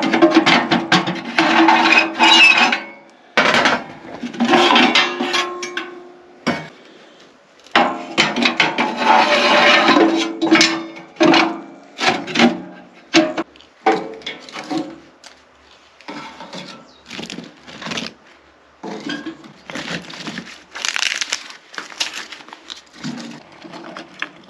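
Wood being worked and handled: repeated bursts of scraping with sharp knocks and clinks in between, busiest in the first half and sparser later on.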